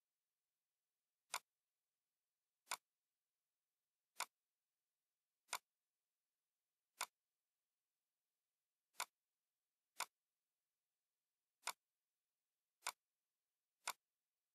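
Computer mouse clicks: ten single, sharp clicks spaced one to two seconds apart over silence.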